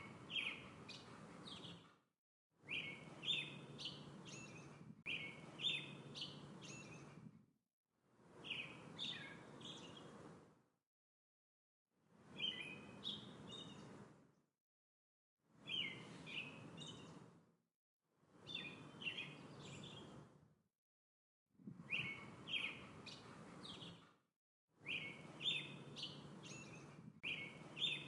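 Small songbird chirping in quick short phrases, heard in separate clips of two to three seconds that fade in and out with brief silences between, about every three seconds, over a low background rumble.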